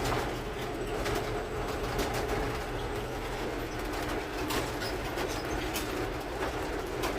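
Semi-truck's diesel engine and road noise heard inside the cab while driving, a steady low drone with a few light clicks.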